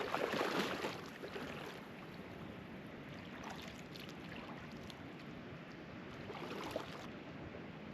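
Lake water splashing as a person wades in to free a snagged fishing lure, loudest in the first second and again briefly about six seconds in, with quieter water noise between.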